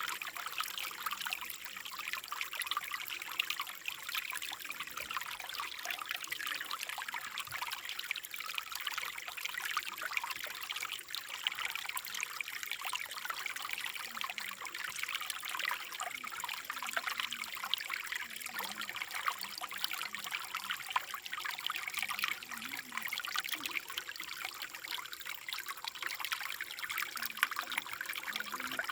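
Running water trickling steadily, a continuous splashing hiss.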